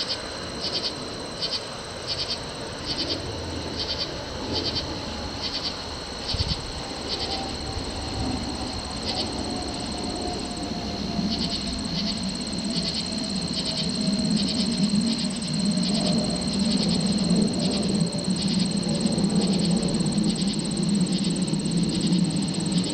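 Night insects chirping steadily, about two to three chirps a second over a continuous high trill. Partway through, a distant jet's low engine drone rises and grows louder until it is the loudest sound.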